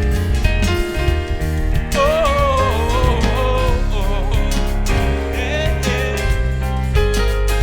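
Live gospel worship band playing with a steady beat and a strong bass, with a sung vocal line about two to four seconds in.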